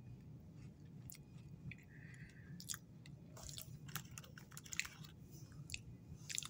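Faint chewing of an Oreo sandwich cookie, with scattered crisp crunches.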